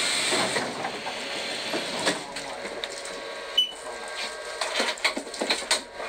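Funicular cable car clicking and rattling: a string of irregular sharp knocks that grow thicker towards the end, after a steady hiss that stops about half a second in.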